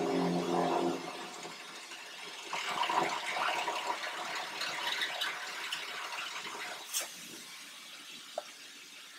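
Electric hand drill boring into an aluminum diesel fuel tank: the motor whines for about a second at the start, then a few seconds of irregular scraping and grinding as the bit cuts through the tank wall.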